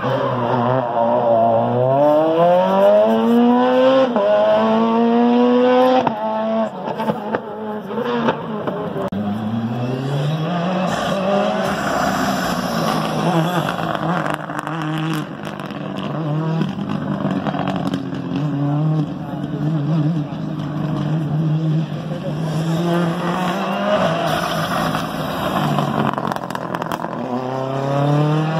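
Rally car engine accelerating hard through the gears, its pitch climbing and dropping back at each shift about every two seconds, then revving up and down as the car slides through the turns. Near the end the engine climbs steeply again under full acceleration.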